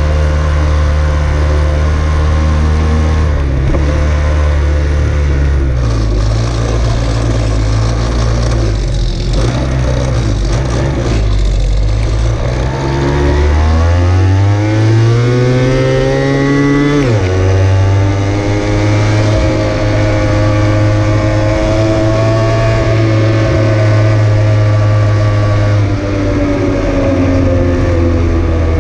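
Engine of a ridden road vehicle running under way. It climbs in pitch as it accelerates, drops sharply at a gear change about 17 seconds in, then settles to a steady cruise, with road and wind noise throughout.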